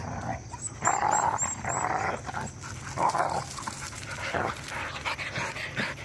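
A pack of dogs play-fighting at close range, making rough noisy vocal sounds in short bursts, two loudest about a second in and three seconds in.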